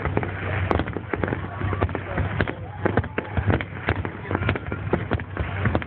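New Year fireworks going off: many sharp cracks and pops in quick, irregular succession.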